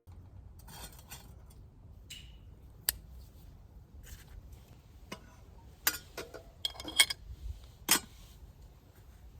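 Irregular sharp clicks and clacks over a low, quiet background: a single one about three seconds in, and a cluster of louder ones from about six to eight seconds in.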